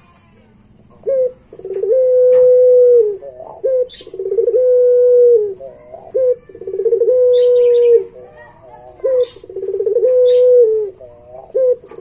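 Puter pelung (a domestic Barbary dove bred for a long coo) cooing four times, with a fifth starting near the end. Each coo is a short note followed by a long, level, held note of about a second and a half, repeated every two to three seconds. Faint high chirps sound between the coos.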